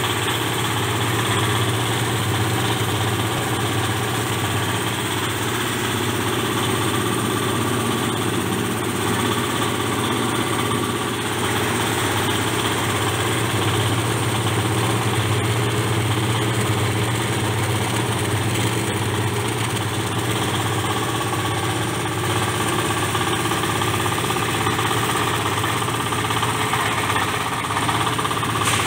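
Stainless steel disk mill running steadily on its small engine while it grinds soaked rice into flour, a continuous even machine drone.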